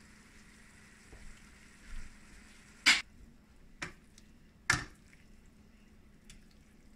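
Fresh linguine being stirred and tossed in a frying pan of shrimp and sauce, with a faint sizzle under it. Three sharp knocks of the utensils against the pan come about three, four and five seconds in.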